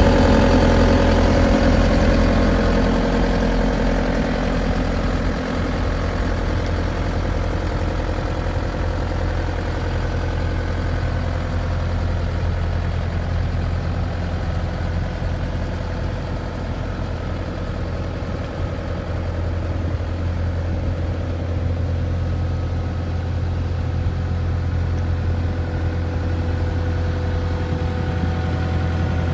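2007 Bobcat A300 skid steer's 81 hp Kubota turbo diesel engine running steadily, louder for the first few seconds and then settling to an even idle.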